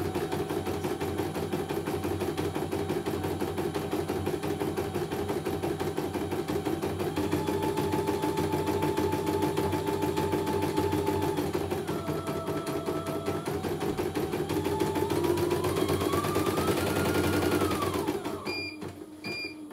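CNY computerised embroidery machine stitching at speed: a rapid needle rattle over a motor whine that steps up and down in pitch. Near the end it rises briefly, then slows to a stop, and the machine beeps twice.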